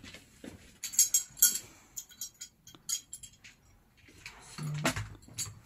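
Small curtain-track brackets and metal hardware clicking and clinking as they are handled on a worktable, with a louder knock near the end.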